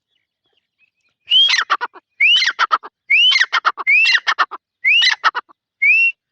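A teetar partridge (francolin) calling loudly: six repeated phrases about a second apart, each a rising whistled note followed by a quick run of clipped notes, the last phrase only the rising note.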